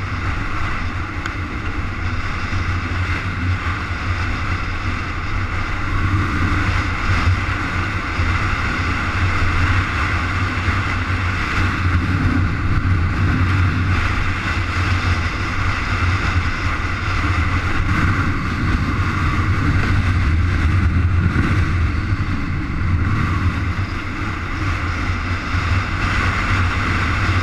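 Steady wind and road noise from riding along a gravel road: wind buffeting the microphone over a low rumble from the tyres on the dirt, swelling and easing slightly.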